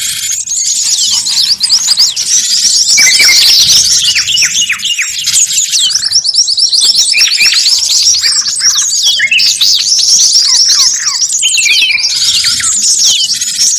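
A dense, loud chorus of many small songbirds calling over one another: rapid overlapping chirps and quick falling whistles. This is a noisy mixed-species lure recording ('suara ribut pikat'), built from flycatchers, cinereous tits, hemipuses and white-eyes, that is played to draw wild birds in.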